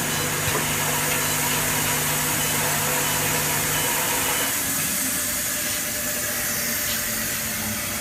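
Eye drop filling and capping machine running with a steady mechanical noise and a low hum. About four seconds in, the hum cuts off and the sound thins as the machine's conveyor, capping and vibrator functions are switched off.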